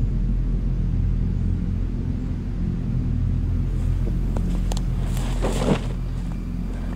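A low, steady droning rumble. About five seconds in, a brief rushing swell rises over it and ends in a short, sharp hit.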